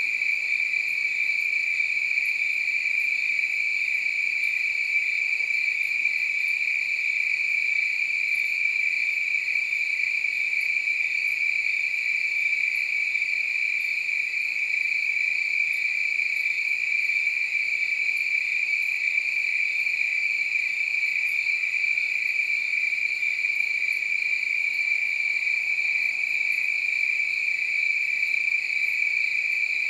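Crickets chirping in a dense, steady chorus, an unbroken high trill that holds at the same pitch and level throughout.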